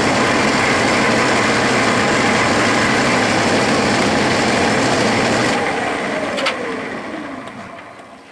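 Clausing metal lathe running steadily with the spindle in reverse during a single-point threading cut. About five and a half seconds in it is switched off, and its whine slides down in pitch as the spindle coasts to a stop, with a click along the way.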